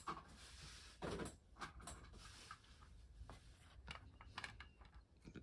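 Near silence with a few faint clicks and light rustles: hands picking up a plastic figure and setting up a turntable disc.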